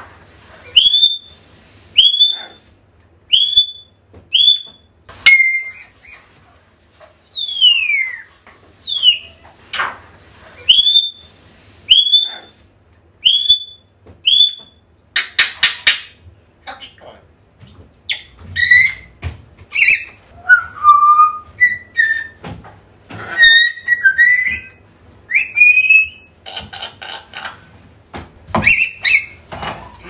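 African grey parrot whistling contact calls: a string of short rising whistles about once a second, a few long falling whistles, and harsh rasping squawks about halfway through and near the end, between more varied whistles. The bird is calling out for its owner.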